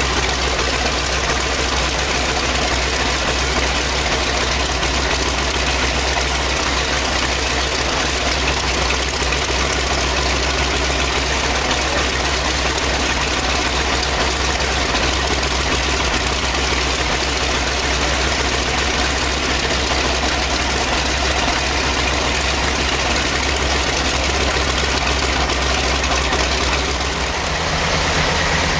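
DC-3's radial piston engine idling steadily. The sound changes abruptly, after a brief dip, near the end.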